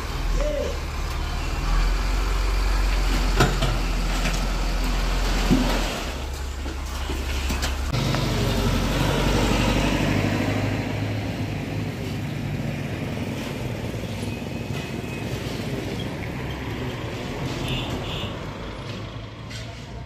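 Dump truck engine running while its raised tipper bed unloads sand, with a couple of sharp knocks. A broad rushing noise follows, and the sound grows fainter over the later seconds.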